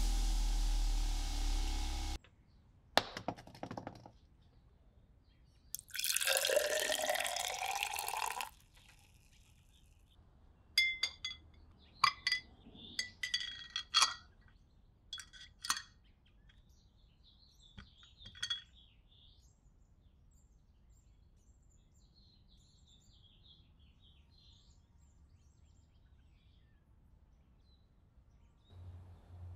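A bench grinder runs and cuts off about two seconds in. Liquid is then poured into a tall drinking glass, its pitch rising as the glass fills. After that, a metal knife handle clinks against the glass several times as it is lowered into the liquid, with one last clink a few seconds later.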